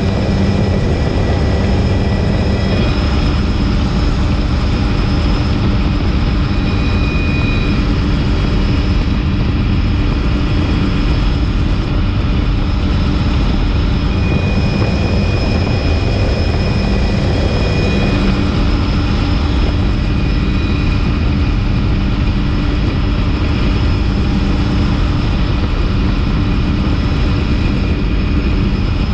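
Helicopter in flight heard from on board: a steady, loud low rumble of rotor and engine with several steady high whining tones from the turbine on top.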